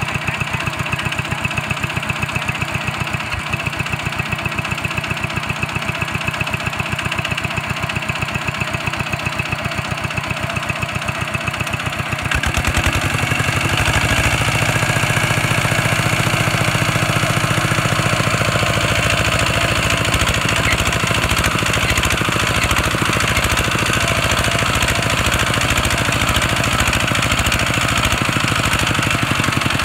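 Kubota walking tractor's single-cylinder diesel engine chugging steadily, then revving up and running louder about twelve seconds in, under load as the tractor works its wheel out of a hole in the field.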